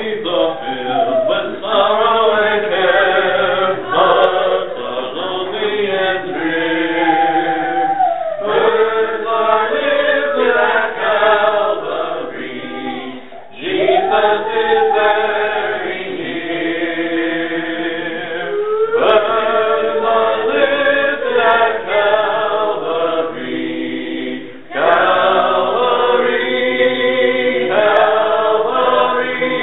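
Church congregation singing a hymn a cappella, many voices together in held lines, with a brief break between phrases about every five seconds.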